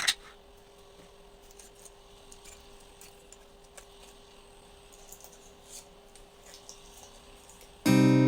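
Faint scattered clicks and soft rustles of small objects being handled, with a sharp click at the start and a faint steady hum underneath. Near the end, background music comes in loudly with a strummed acoustic guitar chord.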